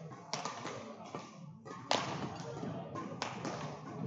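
Badminton rackets striking a shuttlecock: three sharp cracks about a second and a half apart, echoing in a large sports hall, over a murmur of voices.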